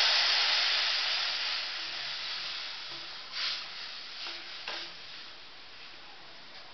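Hot tempering oil and spices in a steel kadhai sizzling as the yogurt and gram-flour kadhi batter is poured in. The hiss dies away over the next few seconds as the batter cools the oil, and a few light clinks of a steel ladle against the pan come in the middle.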